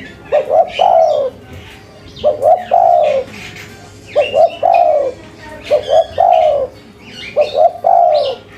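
Spotted dove (tekukur) cooing, repeating its phrase five times: two or three quick clipped notes and then a longer drawn-out coo, the lively stuttering 'cetrekan' style of call. Faint high chirps of small birds sound behind it.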